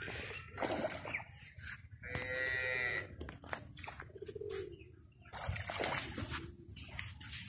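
A drawn-out animal call about a second long comes about two seconds in, followed about two seconds later by a fainter, shorter call, over scattered clicks and rustles.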